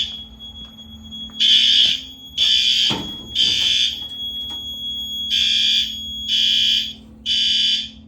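Fire alarm horn strobes sounding the evacuation signal in the temporal-3 pattern: groups of three half-second horn blasts with a pause of about a second and a half between groups. The system is in alarm because its manual pull station was pulled.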